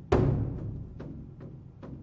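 Large nail-studded Chinese drum struck with wooden sticks: one loud accented stroke just after the start that rings on, then lighter single strokes about every half second.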